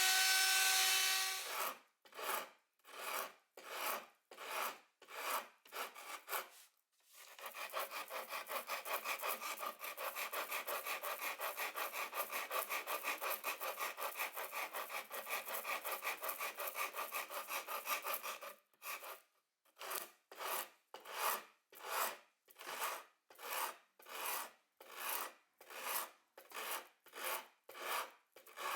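Hand strokes of an abrasive tool rubbing on wood, as in guitar-building. Slow, even back-and-forth strokes, about one and a half a second, give way about seven seconds in to a long run of fast, rapid rubbing. Near the end the slow strokes return.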